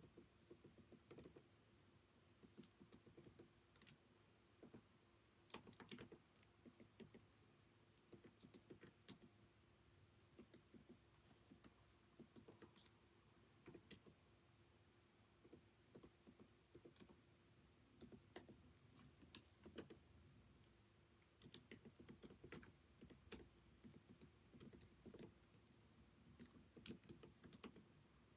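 Faint typing on a computer keyboard: quick runs of key clicks broken by short pauses, as in typing practice.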